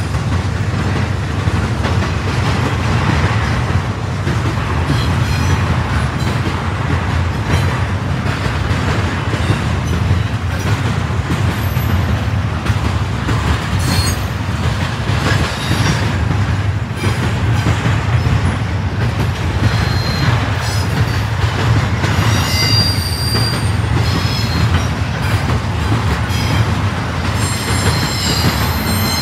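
Double-stack intermodal freight train rolling steadily past: a continuous rumble and clatter of container well cars on the rails. Brief high wheel squeals come and go, most often in the last third.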